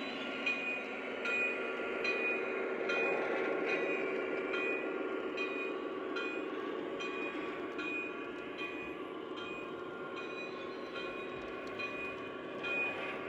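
O gauge model train running steadily on the layout track, with a continuous rolling rumble and regular light clicks.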